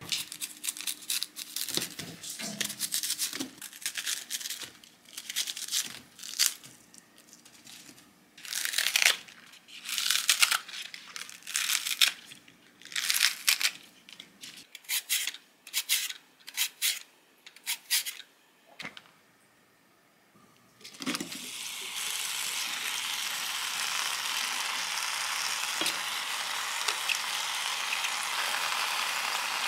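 Kitchen scissors snipping green onions and vegetables, a quick run of sharp crisp cuts. After a short pause, about two-thirds of the way in, a steady hiss sets in and carries on.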